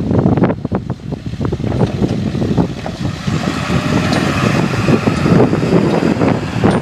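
Wind buffeting the microphone of a handheld device, with a Ford dump truck's engine and tyres growing louder from about halfway through as it drives past close by.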